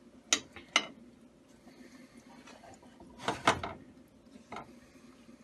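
Metal pan clanking on an electric stovetop as a whole raw chicken is handled in it: two sharp knocks near the start, a quick cluster of knocks about three and a half seconds in, and a lighter one a second later.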